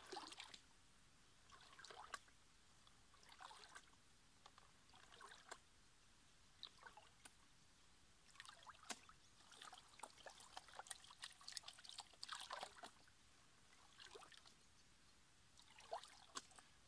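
Green plastic gold pan being swirled and dipped in shallow water: faint, scattered splashes and trickles as water and sediment wash over its rim, busier for a few seconds in the middle.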